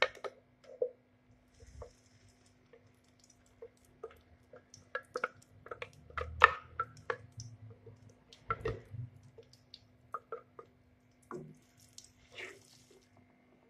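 Thick blended masala paste plopping and sliding out of a glass blender jar into a pan of oil, with a wooden spatula scraping and knocking against the jar: a run of irregular wet plops and light taps.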